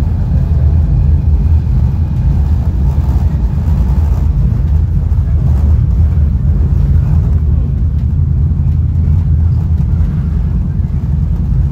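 Caltrain Gallery bilevel coach hauled by an F40PH-2 diesel locomotive, running at speed and heard from inside the car: a steady, loud low rumble of the moving train.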